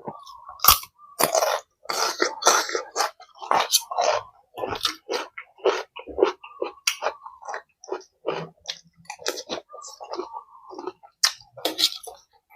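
A person chewing food close to the microphone: a dense, irregular run of crunching and wet mouth clicks.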